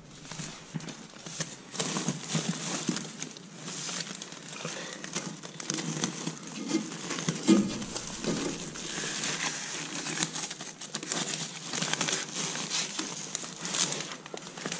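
Aluminium foil tape being unrolled, its paper backing peeled off and the tape pressed around a foil-covered flexible ventilation duct: a continuous uneven crinkling and rustling of foil and paper.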